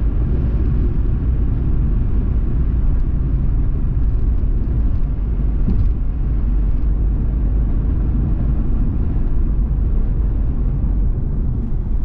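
A car driving on the road, heard from its dashcam: a steady, low rumble of tyres and engine.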